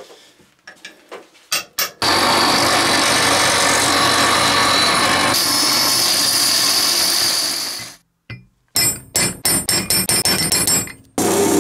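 An electric metal-cutting saw cuts through a steel bar for about six seconds with a loud, steady noise. After a short break comes a quick run of about ten sharp metallic taps, a hammer striking a centre punch to mark hole positions in steel. A few faint clicks of handling come first.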